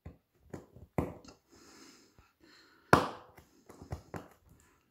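Braille stylus punching dots into paper on a plastic braille slate: a string of sharp, irregular taps and clicks, one dot pressed at a time, the loudest about three seconds in.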